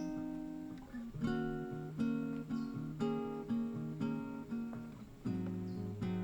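Background music: acoustic guitar picking notes in a steady, even rhythm.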